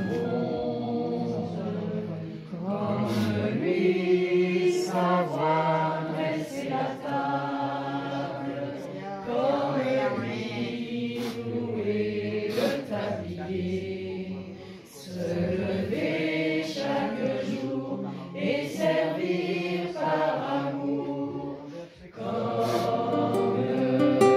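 Background music: a choir singing in long phrases, with brief breaks between them.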